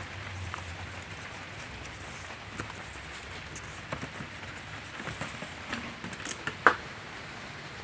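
Scattered light clicks and knocks of parts and tools being handled as a new radiator is fitted into a car, with one sharper knock near the end.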